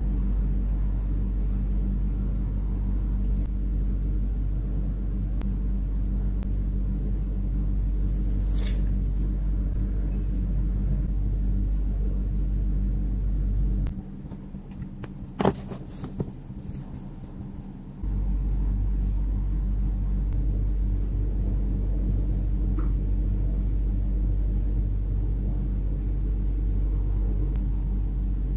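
Steady low rumble with a constant hum. About halfway through it drops away for a few seconds, leaving quieter room sound with one sharp click.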